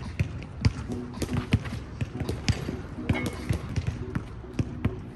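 A basketball dribbled on an outdoor hard court, bouncing repeatedly a few times a second in an uneven rhythm, with voices in the background.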